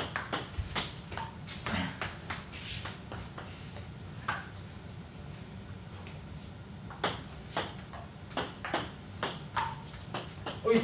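Table tennis rally: the ball clicking sharply off the paddles and the table in quick back-and-forth taps, sparse in the middle and coming fast near the end, over a low steady hum.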